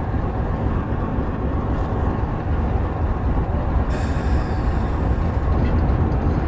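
Diesel-electric locomotive running as it rolls slowly toward the listener, a steady low engine rumble. About four seconds in, a high metallic squeal sets in and fades over the next second.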